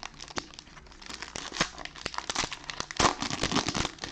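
A trading card pack wrapper being torn open and crinkled by hand, with a run of sharp crackles that grows busier about a second in.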